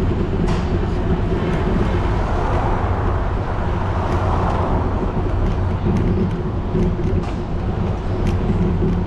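Steady low rumble of a bicycle riding along a paved city avenue, under street traffic noise, with a car passing close by about four seconds in.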